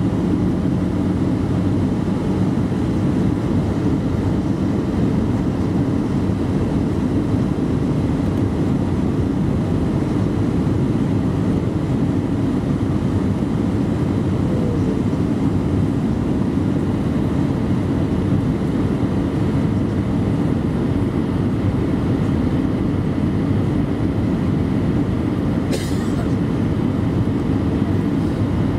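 Steady cabin noise of an Airbus A319-112 in flight, heard from a window seat over the wing: airflow and the hum of its CFM56 engines. A short sharp click comes near the end.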